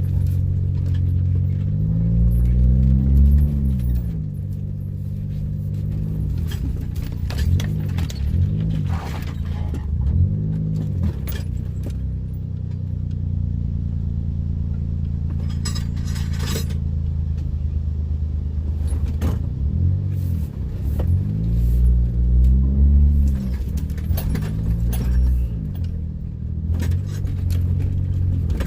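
A vehicle engine running under way over a steady low rumble, its pitch rising and falling several times as it speeds up and eases off. Scattered clicks and rattles run through it, as of loose items and gravel jolting on a rough road.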